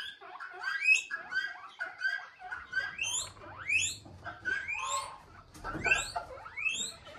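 Small animals squealing over and over: short, high calls that each sweep sharply upward, one or two a second, with a few steadier chirps in between.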